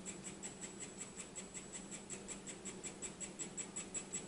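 3D printing pen's filament feed motor running as it extrudes ABS plastic: a fast, even ticking of about six clicks a second over a faint high whine.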